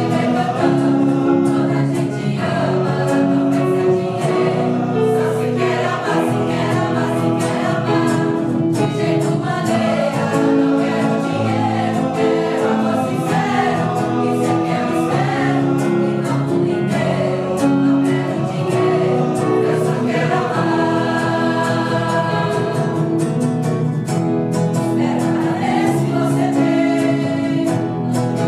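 A choir singing in harmony, several voice parts holding notes together and moving from chord to chord.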